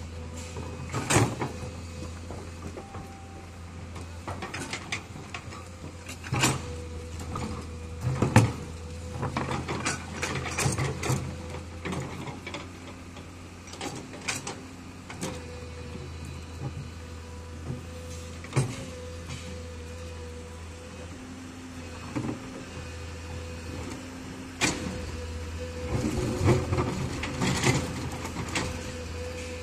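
Komatsu crawler excavator's diesel engine running with a steady hum and a higher whine that comes and goes, while its bucket digs into rocky soil with repeated sharp knocks and clatter of stones.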